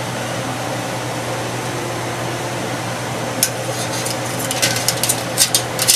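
Metal tongs clinking against a stainless steel stockpot and its perforated strainer insert while stirring boiled shrimp: one click about halfway through, then a quick run of clinks near the end, over a steady hum and hiss.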